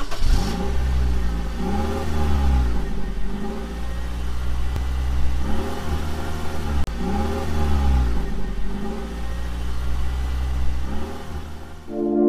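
Car engine idling with a low rumble, blipped several times so that its pitch rises and falls with each rev.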